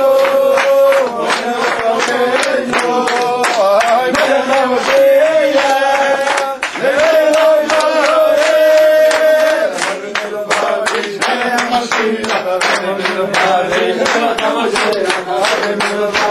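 A group of Hasidic men singing a tune together and clapping their hands in time while dancing.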